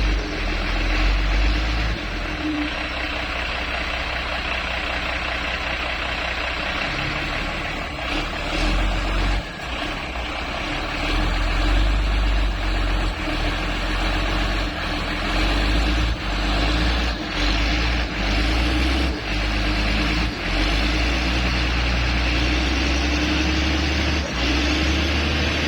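Motor grader's diesel engine running at work with shifting revs, the engine note rising near the end, and several short knocks through the middle. The grader is stuck in soft roadside ground and trying to free itself.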